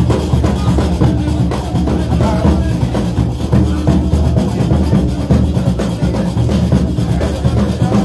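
Loud music with drums and percussion keeping a steady beat.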